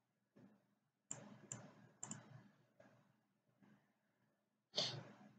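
Computer mouse buttons clicking: a handful of separate, scattered clicks, the loudest near the end.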